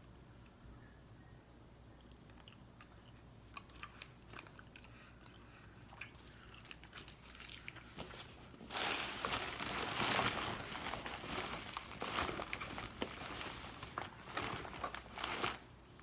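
A snack being bitten and chewed close to the microphone, with crunching and packaging crinkling. It starts as scattered clicks, turns dense and loud about nine seconds in, and stops shortly before the end.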